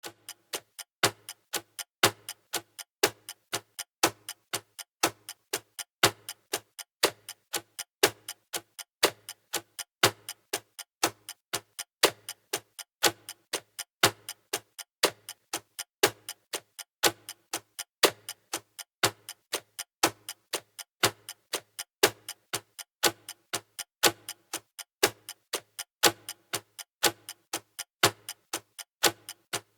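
Clock ticking steadily: sharp, even ticks with a louder one about once a second and softer ones between.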